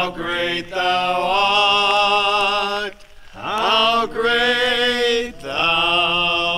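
People singing a hymn unaccompanied, in long held notes with short breaths between phrases about three seconds and five and a half seconds in.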